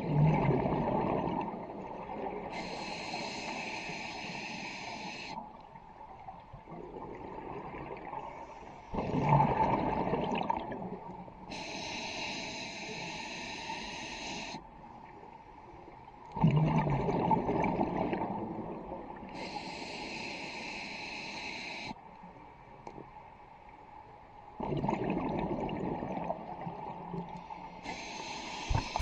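Scuba diver breathing through a regulator underwater: a steady hiss on each inhale alternating with the low burble of exhaled bubbles. About four breaths, one every seven or eight seconds.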